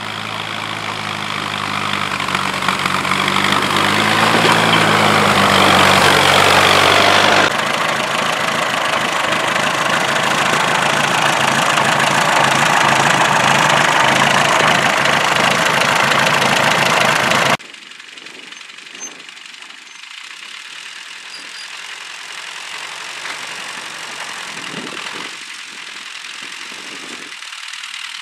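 Valmet 20 tractor engine running, growing louder as the tractor drives closer. Its level then drops abruptly twice, and it carries on at a steady idle, quieter.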